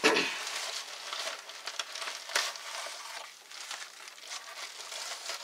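Kraft-paper mailer envelope rustling and crinkling in irregular scrapes and crackles as it is handled and its contents are pulled out.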